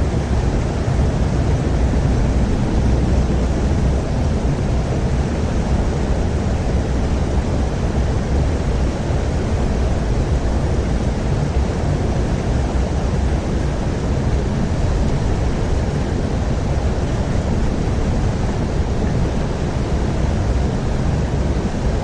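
Steady rushing of flowing creek water, an even noise without pitch, heaviest in the low end.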